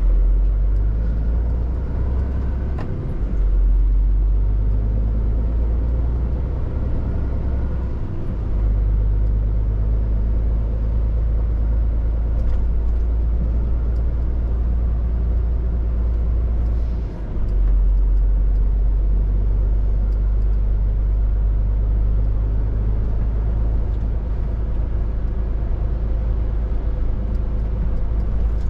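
Scania R450 articulated lorry under way: the 13-litre six-cylinder diesel runs as a steady low drone, with road noise over it. The drone drops out briefly three times.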